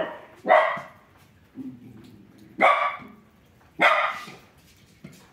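A dog barking: three loud barks spread over a few seconds.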